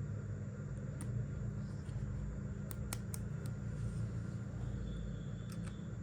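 A steady low electrical hum, with a handful of short, light clicks: one about a second in, three close together around three seconds, and two more near the end.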